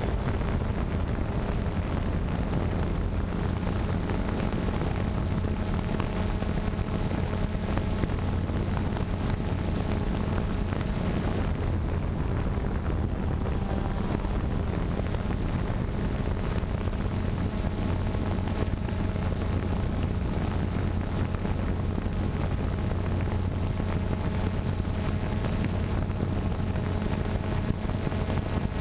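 A camera drone's motors and propellers running with a steady hum, mixed with wind noise on the onboard microphone.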